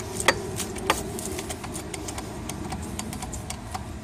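Metallic clicks and ticks from a hydraulic hand pump and press cylinder being pumped to press a new wheel bearing into a steering knuckle. Two sharp clicks come in the first second, then fainter scattered ticks, over a steady low hum.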